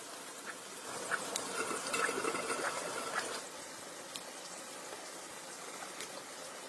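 Liquid being poured or splashed for about two and a half seconds, starting about a second in, over a steady faint hiss with scattered small ticks.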